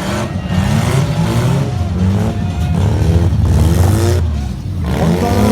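Several car engines revving up and down over one another, over a heavy low rumble.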